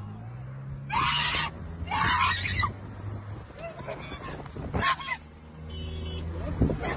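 A woman's distressed screams, several short cries, inside a moving car over the steady hum of its engine.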